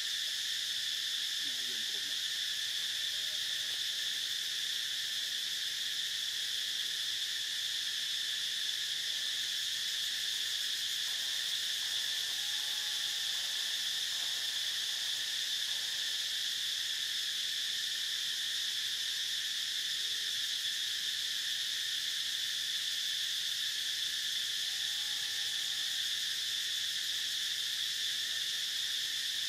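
Steady, unbroken insect chorus, a high buzzing drone in several pitches, with a couple of faint short calls under it, around the middle and near the end.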